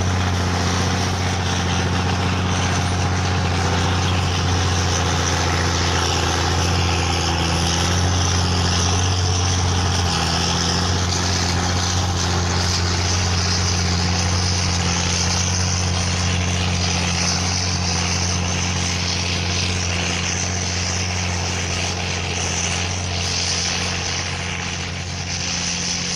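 Oliver 1855 turbo diesel tractor's six-cylinder engine running steadily at a constant speed, as when pulling a moldboard plow.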